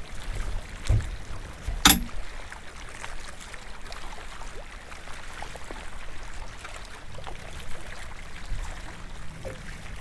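Water lapping and trickling around a small boat's hull, with a low thump about a second in and a sharp knock about two seconds in.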